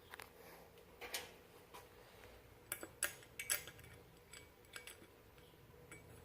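Faint, irregular light metal clicks and taps, about a dozen, from small hub parts and hand tools being handled, with a cluster of sharper ones around the middle.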